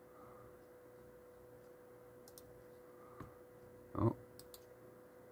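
Faint clicking from operating a laptop, the clicks coming in quick pairs, with one louder dull knock about four seconds in. A faint steady hum runs underneath.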